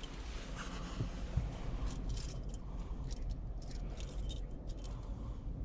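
A run of faint, light clinks and rattles over a low steady hum.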